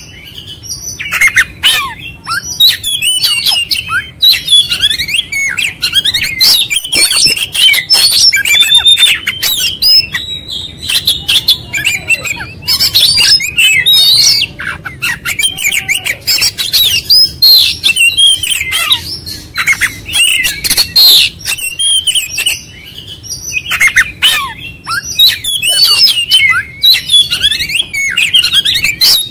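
Oriental magpie-robin (kacer) singing loudly and without pause, a fast jumble of whistled notes, chirps and harsh rattling phrases. It is in full song, running through its repertoire of learned phrases.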